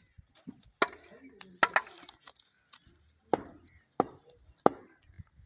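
About six sharp knocks, like blows of a tool, spaced unevenly with a short ring after each: a close pair in the first two seconds, then three more a little over half a second apart near the end.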